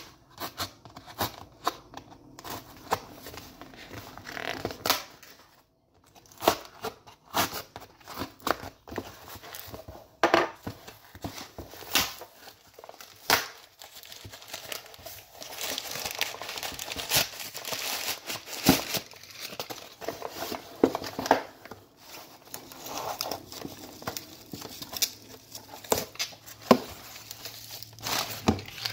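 Cardboard shipping box being torn open and crumpled packing paper pulled out by hand: a long run of crinkling, rustling and tearing, with many sharp crackles.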